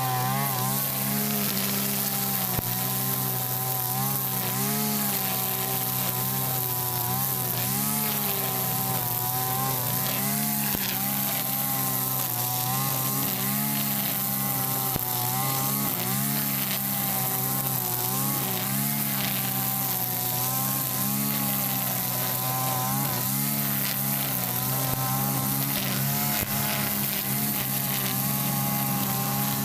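Mitsubishi backpack brush cutter running under load with a nylon-line head cutting grass. The engine pitch dips and recovers every second or two as the line sweeps through the grass.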